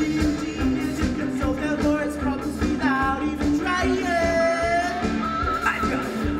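Rock song with a sung vocal over a steady drum beat and bass line; the singer holds one long note with vibrato about four seconds in.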